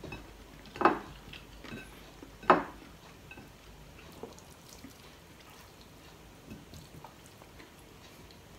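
Hand-eating sounds: quiet mouth and chewing noises and light taps of fingers on a plate of rice, with two short louder noises about a second in and at two and a half seconds.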